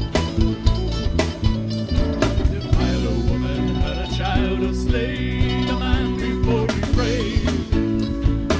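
A band playing: drums keeping a steady beat under bass and guitar, with a wavering melodic line through the middle.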